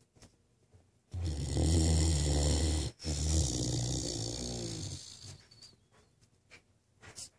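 Great Dane snoring: one long, loud snore with a low buzz starts about a second in, breaks briefly in the middle, then trails off.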